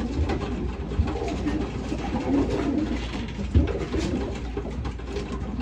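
Racing pigeons cooing in the loft, a steady low warbling chorus, with a soft knock about three and a half seconds in.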